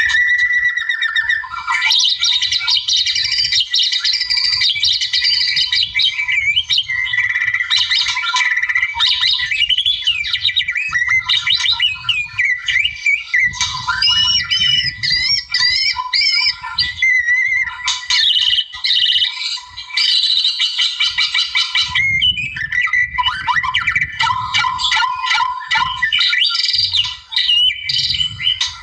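White-rumped shama (murai) singing vigorously: a rapid, nearly unbroken flow of varied whistles, trills and harsh squawk-like notes, with a couple of brief pauses about two-thirds of the way through.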